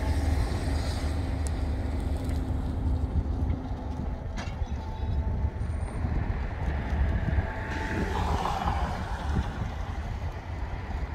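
Steady low rumble of highway traffic, with wind on the microphone; a vehicle swells past about eight seconds in.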